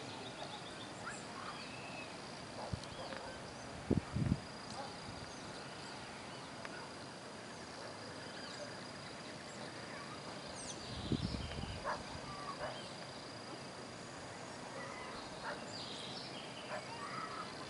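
Open-air hillside ambience: a steady hiss and a thin, steady high tone, with scattered short bird chirps. Two low thumps come about four seconds in, and a brief low rumble follows around eleven seconds.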